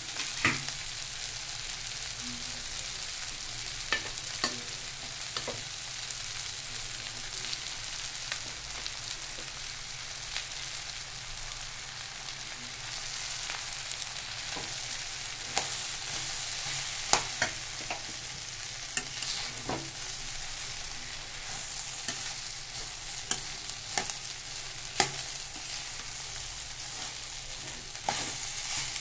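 Cooked rice being stirred in a hot metal pan of tempering with a metal spatula: a steady frying sizzle, broken by irregular sharp scrapes and clinks of the spatula against the pan.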